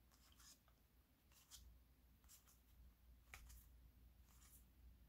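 Faint swishes of trading cards being slid off a stack one at a time, about once a second, over low room hum.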